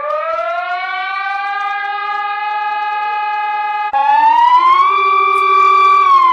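Emergency alert siren tone, rich in overtones, winding up in pitch and then holding steady. About four seconds in it cuts abruptly to a second siren tone that rises higher, holds, and begins to wind down near the end.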